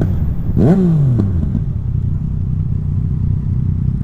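Yamaha MT-09's three-cylinder engine blipped hard on the throttle a few times, the pitch shooting up and falling straight back, the strongest blip about a second in, then settling to a steady low running note. A loud exhaust that 'sings well'.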